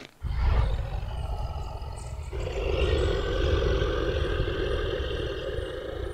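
A long, deep rumbling growl of a large creature, as of a dragon, with a stronger, higher layer joining about two seconds in; it cuts off at the end.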